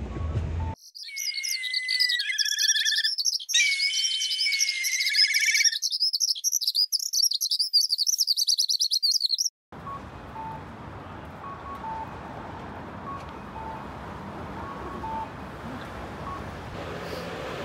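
Birds chirping and trilling with high whistled notes, a clean recording with no background, which cuts off abruptly about ten seconds in. It gives way to steady city street traffic noise with short, repeated two-tone electronic beeps.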